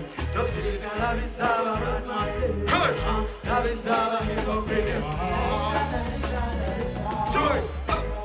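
Live concert music: a male singer singing into a microphone over a band with a heavy, steady bass beat.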